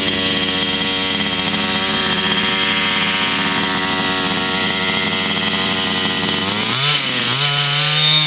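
Two-stroke petrol engine of an HPI Baja 5B 1/5-scale buggy running steadily at idle, then revved with the throttle from about seven seconds in, its pitch dipping and rising.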